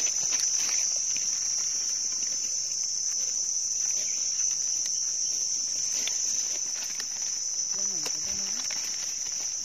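Insects droning continuously in one steady high-pitched tone, with light rustling and scraping of dry leaves and soil as mushrooms are dug out by hand and with a knife.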